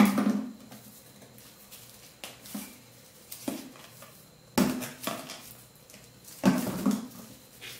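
A series of knocks and clatters of objects handled on a concrete shop floor, with a plastic bottle of wood glue picked up and set back down. The loudest knocks come at the start and about two thirds of the way through.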